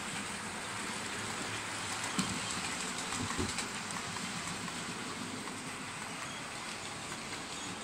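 Model steam locomotive and its coaches running round the layout track: a steady rolling hiss of wheels and motor, with a couple of light knocks in the first half.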